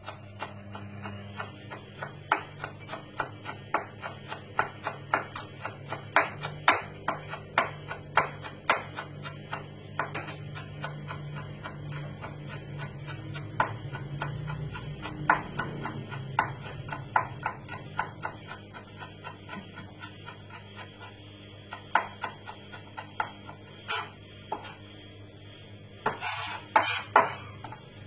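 A kitchen knife chopping food on a cutting board in quick, even strokes, about three or four a second. Near the end there are a few louder knocks and clatter.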